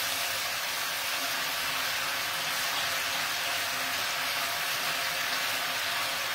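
Chicken rolls wrapped in pancetta frying in a pan, a steady sizzle.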